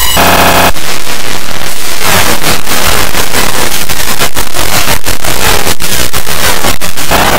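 Very loud, harsh distorted noise, broken by many short dropouts; it follows a brief pitched sound at the start and cuts off near the end.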